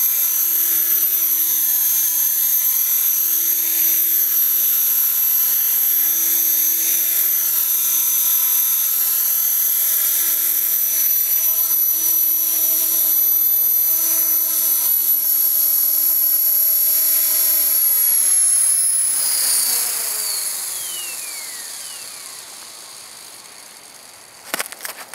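Electric Trex 450 PRO RC helicopter with a five-bladed main rotor hovering, its motor making a steady high whine over the rotor buzz. About nineteen seconds in it spools down after landing: the whine and rotor sound fall in pitch and fade. A few sharp clicks come near the end.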